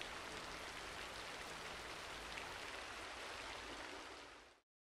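Steady rain falling, an even soft hiss that fades out near the end.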